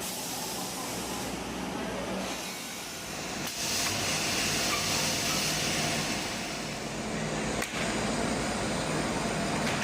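Steady factory machinery noise: a hiss over a low hum, stepping louder about three and a half seconds in, with a brief break near the end.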